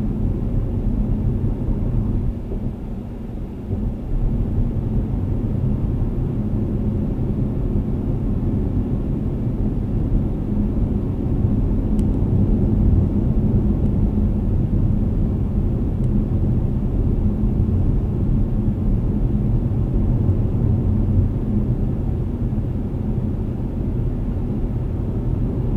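Steady low rumble of a car driving at highway speed, heard from inside the cabin: tyre and road noise with the engine beneath, dipping briefly a few seconds in.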